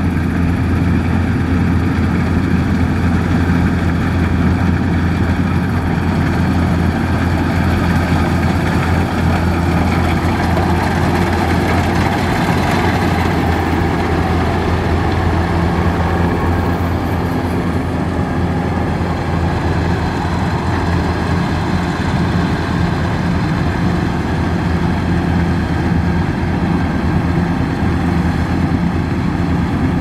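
Kubota DC-105X rice combine harvester running steadily while it cuts the crop, its engine giving a constant low hum.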